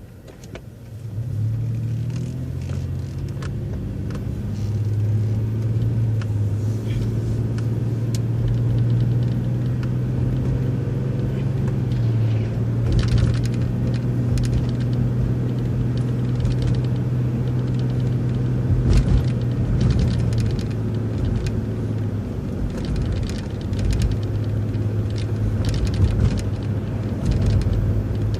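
City transit bus engine pulling away from a stop and running on at road speed, heard from inside the bus; its steady low drone changes pitch a couple of times as the transmission shifts. Short rattles from the bus body come and go.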